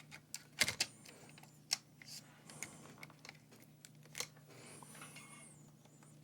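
Faint, scattered light clicks and taps of handling on the workbench over a steady low electrical hum.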